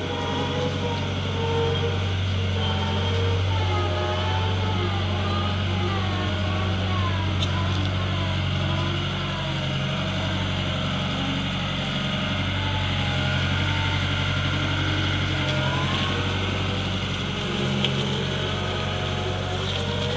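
Caterpillar M314 wheeled excavator's four-cylinder diesel engine running steadily as the machine drives off on its tyres.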